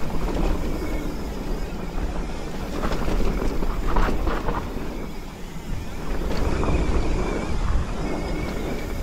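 Mountain bike rolling fast down a dirt singletrack: wind rushing over the camera's microphone, with tyre noise and rattles from the bike that are busiest around the middle.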